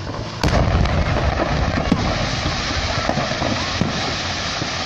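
A fireworks workshop explodes: a sudden heavy blast about half a second in, followed by continuous crackling and popping as the fireworks stock goes off.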